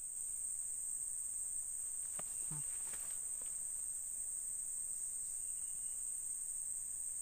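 Steady, unbroken high-pitched drone of insects such as crickets or cicadas.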